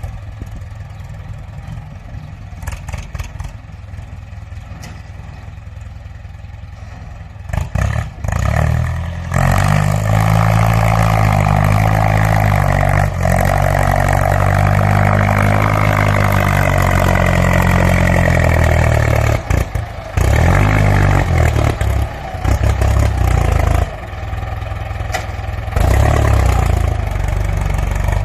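Ford 6640 tractor's diesel engine idling, then revved hard about a quarter of the way in and held at high revs with its pitch wavering up and down. In the second half it drops and rises in a few short blips and settles lower before one more rev near the end. A fierce sound.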